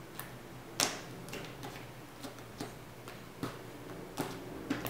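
Sticky white borax-activated slime being pressed on a wooden tabletop and pulled off the fingers, giving irregular sharp clicks and small pops, roughly two a second.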